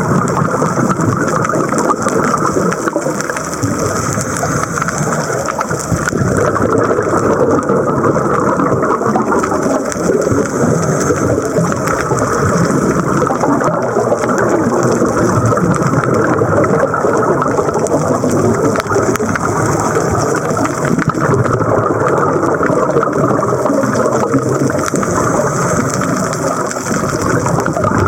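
Steady rushing, crackling water noise as heard through an underwater camera during a scuba dive.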